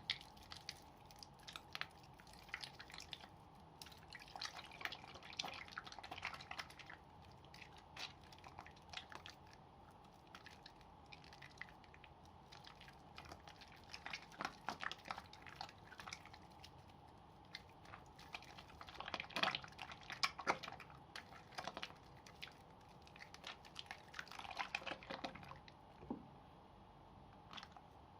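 Wet soap slivers stuck together being lathered in the hands: soft squishing with irregular clusters of small crackles and pops from the foam.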